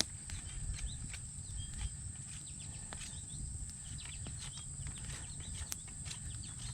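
Campfire crackling, with scattered sharp pops and snaps over a low steady rumble.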